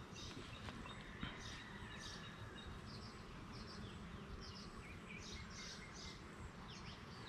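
A small bird chirping repeatedly in short high notes, every half second or so, over the faint steady hum of honeybees around an open hive.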